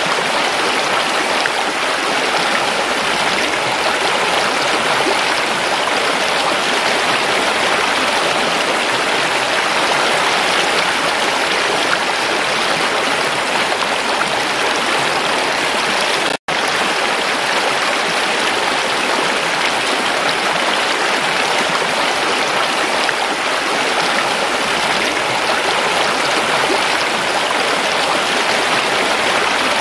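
Shallow stream flowing over rocks, a steady rushing splash of water. It cuts out for a split second a little past halfway, then carries on unchanged.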